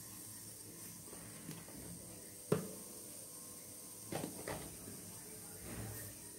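Steel spoon knocking against a stainless steel bowl while sambar powder is added to tamarind water: one sharp tap about two and a half seconds in, then a few lighter clinks about four seconds in.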